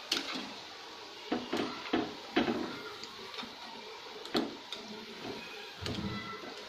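Oil sizzling steadily as spinach besan rolls deep-fry in a kadai, while a wire-mesh skimmer scrapes and knocks against the pan several times as the rolls are lifted out.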